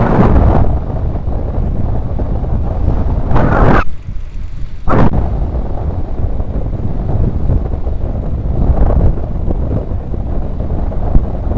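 Wind buffeting the microphone of a camera on a mountain bike moving at speed: a loud low rumble that surges in gusts, with a short lull about four seconds in.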